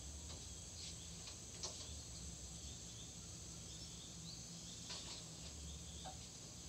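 Baby three-toed sloth giving a few brief, high-pitched whistles over a steady high background hiss.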